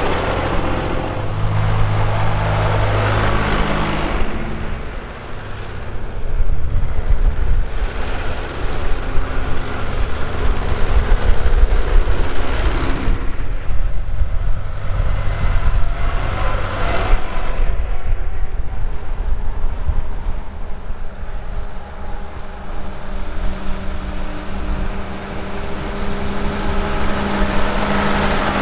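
Tractor engines running as a line of vintage and classic tractors drives past one after another, each swelling and fading as it goes by. A grey Ferguson passes close at the start, a car goes by in the middle, and a County four-wheel-drive tractor passes near the end.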